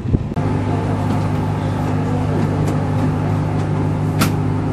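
Steady low hum of a docked ferry's onboard machinery, with a short thump at the very start and a sharp click about four seconds in.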